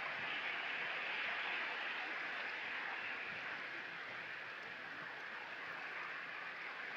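Gentle sea waves lapping on the beach: a steady wash of water hiss that swells about a second in and eases off toward the middle.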